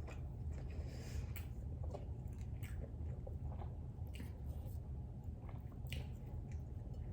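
A person chewing and biting food, with soft, irregular mouth clicks and smacks over a steady low hum.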